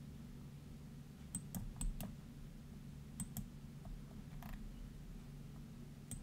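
A handful of sharp clicks at the computer, four in quick succession about a second and a half in and two more about three seconds in, over a steady low hum.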